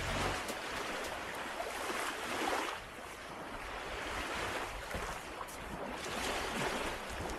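Small lake waves washing onto a sandy beach, a steady wash that swells and eases every few seconds.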